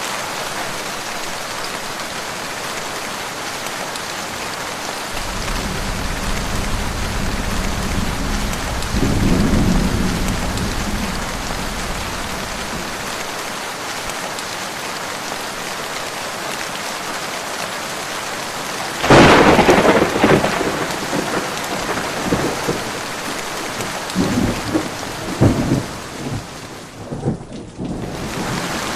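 Heavy rain falling steadily through a thunderstorm. A long low roll of thunder builds and fades about a third of the way in; about two-thirds in a sudden loud thunderclap breaks, followed by rumbling and several more cracks near the end.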